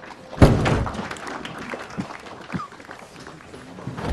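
A sudden loud, deep thud about half a second in that dies away over about half a second, followed by scattered light knocks and bumps.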